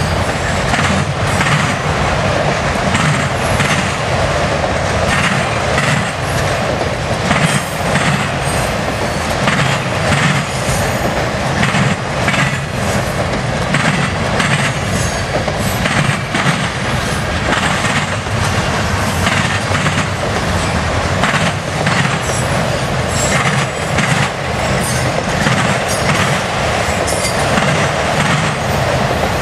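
Freight cars rolling past close by: a steady loud rumble of steel wheels on rail, with irregular clacking as the wheels cross rail joints.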